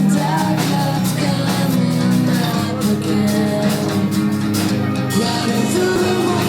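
Music playing continuously, a song with a beat and a melodic line that may be a voice singing.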